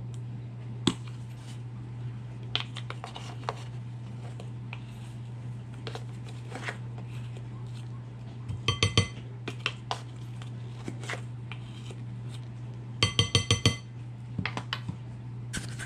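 A metal measuring spoon clinking against a bowl while baking powder is measured out: scattered small clicks and scrapes, with two runs of quick ringing taps, one about nine seconds in and a longer one of about half a dozen taps near the end. A steady low hum runs underneath.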